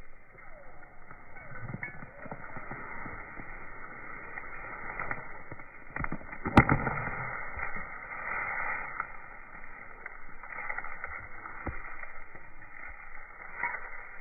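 A dog tearing and crunching grass-weed roots in its teeth: continuous ripping and crackling, with one sharp loud snap about six and a half seconds in.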